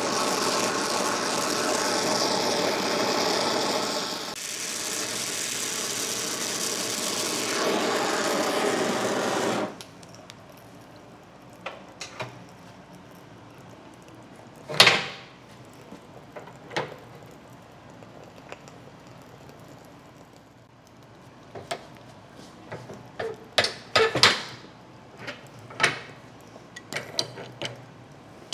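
Oxy-fuel torch flame hissing steadily while it heats a rust-seized steel tube, shut off abruptly about ten seconds in. After that come scattered metallic clicks and knocks from a wrench worked on the tube, the loudest a sharp clack in the middle and a quick cluster near the end.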